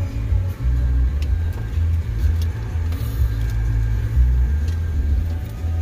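Jeep driving on an unpaved trail: a loud, uneven low rumble with a few light knocks and clicks.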